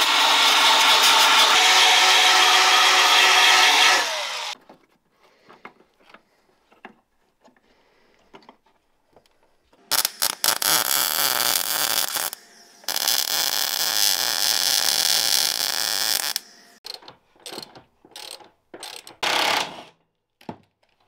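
Electric belt file grinding the sheet-metal edge of a cut-down door, its motor whining, then winding down about four seconds in. After a few light clicks come two runs of MIG welding, a steady crackling hiss of about two and three seconds, and near the end a short burst from a cordless drill-driver.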